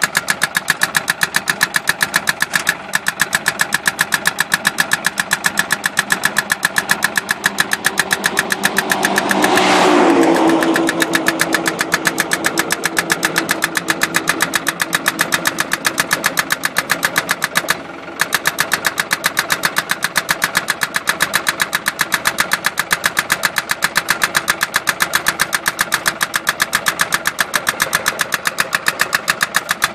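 Truck-mounted hydraulic post driver hammering a fibreglass roadside delineator post into the ground: a steady, rapid pounding of about five blows a second over the running engine. About ten seconds in, a louder rushing sound swells and fades.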